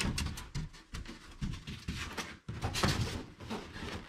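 Large styrofoam packing piece being pushed and shifted against the cardboard of a TV box: a run of irregular scrapes, rubs and light knocks.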